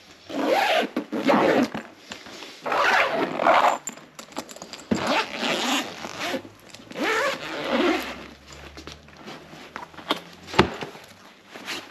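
Zipper of a black soft-sided suitcase being pulled open around the case in about four long strokes. A single sharp knock follows near the end.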